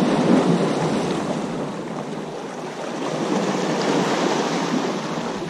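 Small sea waves washing and sloshing against jetty rocks, swelling and easing.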